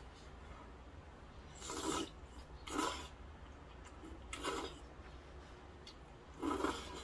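Four wet slurps as a mouthful of kalguksu noodles is sucked in, each about half a second long.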